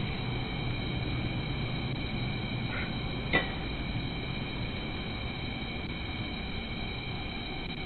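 Steady background hiss with a faint steady whine of high tones, as heard through a doorbell camera's microphone; a single short click about three and a half seconds in.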